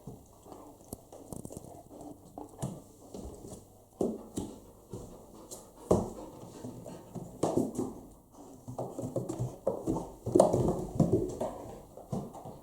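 An Akita dog moving about on a hard floor: irregular knocks and taps, the loudest about 6 and 10 seconds in.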